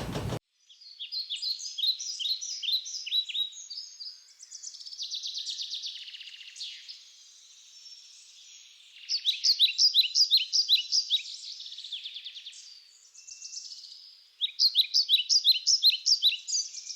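Small songbirds chirping in quick runs of repeated high, falling notes, about four or five a second, with a buzzy trill in between; the song comes in three bouts with quieter gaps.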